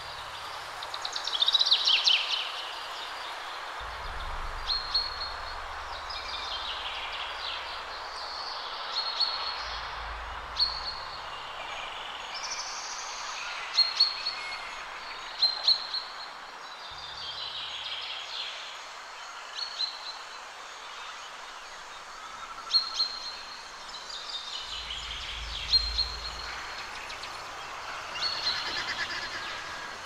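Meerkats chirping: many short, high chirps and some falling calls, repeated every second or two over a steady outdoor hiss, with a low rumble that comes and goes.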